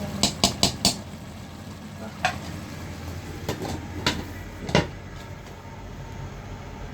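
A spoon knocking against a cooking pot as food is stirred: four quick clinks in the first second, then a few single knocks, over a steady low hum.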